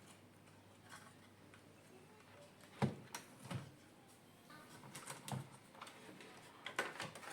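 Scattered clicks and knocks of plastic and metal parts being handled while a replacement wash timer is fitted into a washing machine's control panel. The loudest knock comes about three seconds in.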